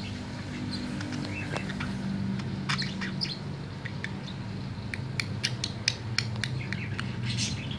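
Male budgerigar warbling in short chirps and clicks, busier in the second half, over a steady low hum.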